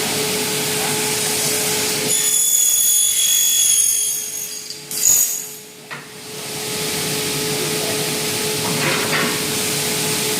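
CNC machine cutting aluminium window profile: a steady machine hum under a high-pitched cutting whine. The whine is strongest from about two to four and a half seconds in, with a loud cutting burst around five seconds, then drops off briefly before the machine noise returns.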